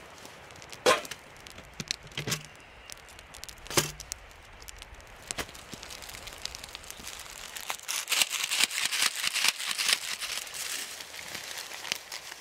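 Plastic food bag crinkling and rustling as it is opened and oatmeal is poured from it into a metal camp plate, busiest in the second half. Earlier come three sharp clicks or knocks.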